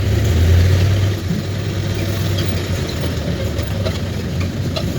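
A car's engine running with road noise while driving, a steady low drone that is a little louder in the first second or so.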